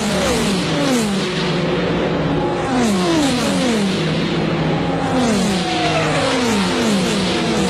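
Group C endurance prototype race cars passing at speed, one after another. Each engine note drops in pitch as the car goes by, over a steady engine drone.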